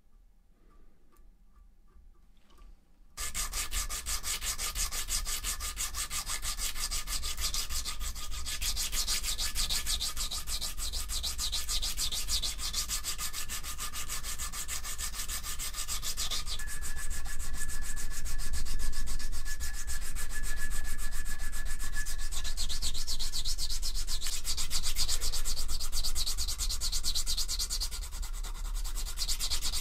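Abrasive sanding stick rubbed rapidly back and forth against the steel of a Joseph Dixon #6 pricking iron clamped in a vice, sanding off surface rust. It starts abruptly about three seconds in after a few seconds of faint ticking, and then runs on as a steady dense hiss of strokes.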